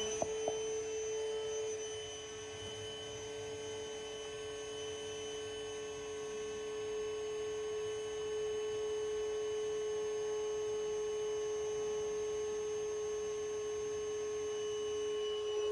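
Vacuum motor running at full speed with a steady high whine, getting slightly louder about halfway through, as it sucks on an air conditioner's clogged condensate drain line from its outdoor end.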